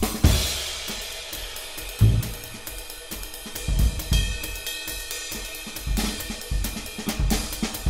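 Background music with a steady drum-kit beat: regular hi-hat or cymbal strokes over kick and snare hits.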